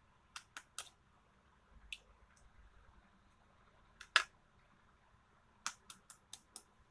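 Sharp clicks and taps of kitchen utensils against a bowl while ingredients go in: three quick ones at the start, a single loud tap about four seconds in, and a rapid run of five near the end.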